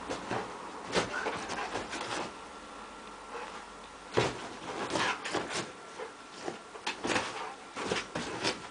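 A Rottweiler pawing and pouncing at a laser dot on a bed, making irregular rustles and sudden thumps and scrabbles on the bedcovers, in clusters a second or so apart.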